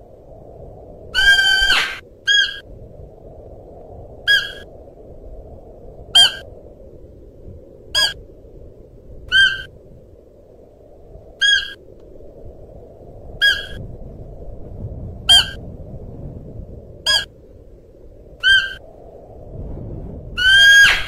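Siberian musk deer calling: a series of short, high, clear-pitched calls about every two seconds, with a longer call near the start and another near the end, over a steady low background noise.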